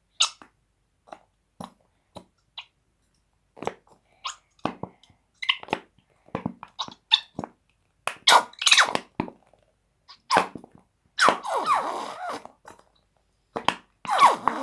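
Handling of a plastic glue bottle and slime-making containers: irregular clicks and crackles, with longer squeezing and crinkling noises about eight, eleven and fourteen seconds in.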